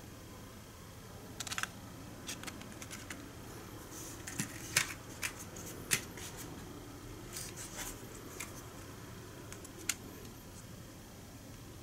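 Light, scattered plastic clicks and taps as N gauge model train cars are handled and lifted out of their plastic storage tray, the sharpest clicks near the middle.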